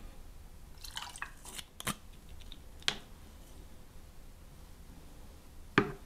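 Cocktail-making sounds: dark rum trickling from a jigger into a steel shaker tin, with small clinks of glass and steel about a second in. A knock follows around three seconds, and a sharp, louder knock near the end as things are set down on a wooden tray.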